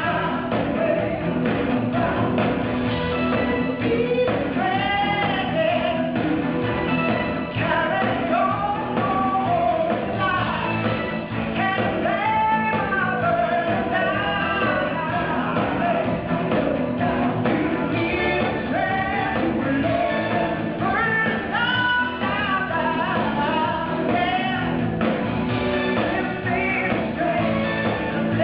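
Live band playing a pop-rock song over a steady beat, with a woman singing the lead vocal.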